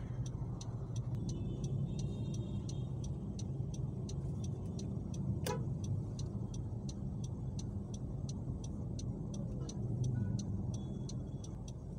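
Steady low rumble of a car idling in traffic, heard from inside the cabin while stopped at a red light. Quick regular ticking runs through it, about two to three ticks a second, with one sharper click about five and a half seconds in.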